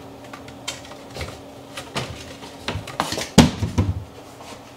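Kitchen wall-cabinet door opened and shut and a plate taken out: a run of light clicks and knocks, with a louder clatter a little past three seconds in.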